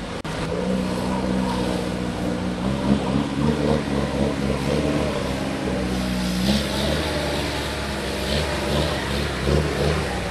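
Off-road 4x4's engine running hard under load, its revs rising and falling repeatedly as it drives through deep muddy water, with water splashing and churning around the wheels.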